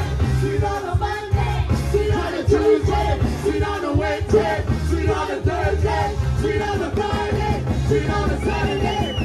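Loud upbeat gospel praise music played over a PA system: a singer leading over a band with heavy bass and a steady drum beat. A high wavering note joins near the end.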